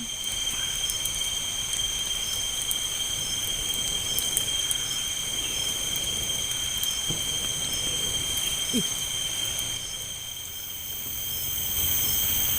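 Night insects chorusing in several steady high-pitched tones, with a fainter chirp repeating about once a second, over a low rumble and a few soft clicks.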